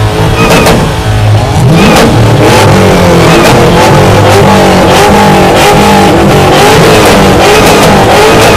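Car engines revved hard again and again for an exhaust competition, very loud, the pitch rising and falling with each rev.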